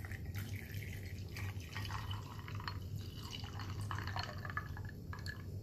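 Peach iced tea poured in a stream into a tall glass over ice cubes, splashing and trickling as the glass fills.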